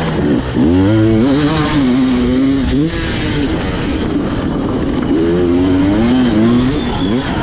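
Two-stroke hard enduro motorcycle engine revving hard with the throttle: the pitch climbs sharply about half a second in, holds, drops a few seconds in, then rises and falls again near the end.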